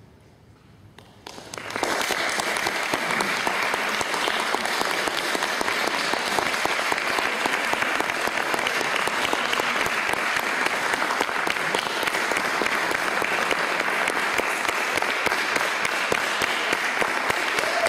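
Audience applauding. After a quiet first second or so, the applause breaks out and goes on steadily: dense clapping from many hands at the close of a stage performance.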